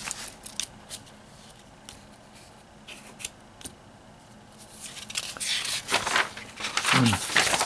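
Sheets of printed paper being handled: a few light taps and paper clicks, then from about five seconds in a louder rustle as a page of a stack of handout sheets is flipped over.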